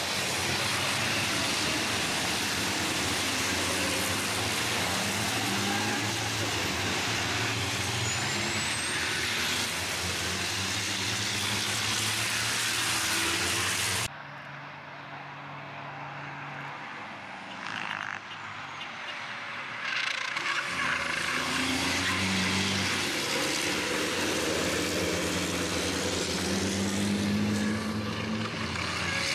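Racing trucks' turbo-diesel engines running hard as a pack of trucks passes. The sound cuts off suddenly about halfway through to a quieter stretch, then engines build again and rise in pitch as more trucks come through.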